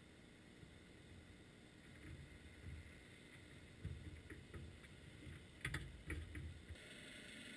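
Faint underwater sound through a GoPro's waterproof housing on the seabed: low muffled rumbling with a few sharp clicks or knocks about four and six seconds in, then a steady hiss that grows louder near the end.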